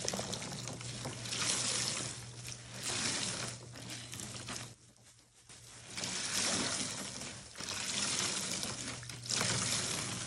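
Soapy water pouring out of a soaked sponge as gloved hands wring it over a foamy basin, in several pours of a second or two each, with a brief lull a little before halfway.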